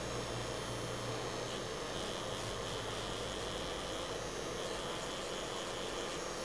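LI Direct Rotary Blue Edition rotary tattoo machine running, a steady even hum.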